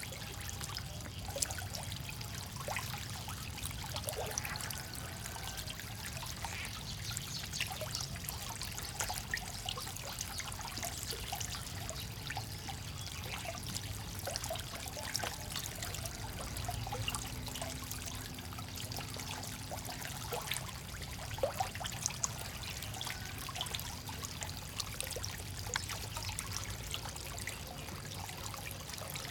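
Water trickling and lapping, with many small splashes and clicks from a dense crowd of farmed frogs jostling in shallow water around floating feed pellets.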